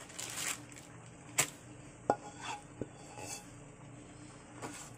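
A utensil scraping and clinking against a pot as thick turnip-cake batter is scooped out into a lined pan, with a sharp knock about a second and a half in and a short ringing clink soon after.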